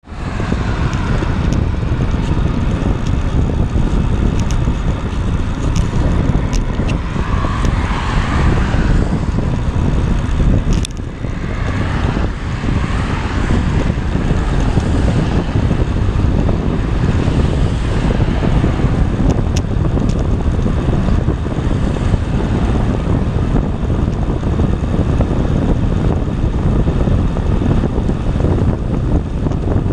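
Steady wind rumble on the microphone of a camera riding along on a bicycle over an asphalt path, mixed with tyre noise and traffic on the road alongside; the rumble drops briefly about eleven seconds in.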